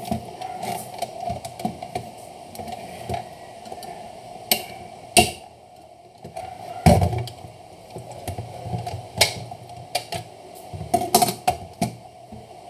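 Plastic parts of a Jura Z6 espresso machine's brewing unit clicking and knocking while being taken apart by hand, in irregular taps and clatters with a few louder knocks about five, seven and eleven seconds in.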